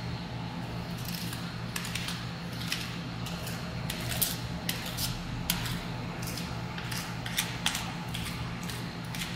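Metal spatulas tapping, chopping and scraping on a steel ice-cream cold plate: irregular sharp clinks, a few each second, over a steady low hum.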